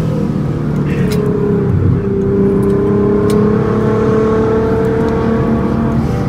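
Nissan GT-R R35's twin-turbo V6 heard from inside the cabin while cruising, a steady engine drone over road rumble that slowly rises in pitch in the second half.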